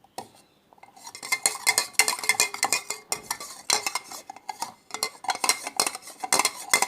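A spoon stirring slime mixture of glue, salt and Veja cleaner in a container, scraping and clinking against the sides in quick, continuous strokes that start about a second in.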